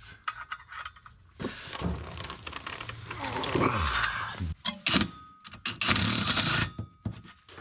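Socket wrench with a leverage extension working on a 16 mm bolt of a BMW drive shaft flex disc (guibo): a run of metal clicks and scraping as the bolt is worked loose.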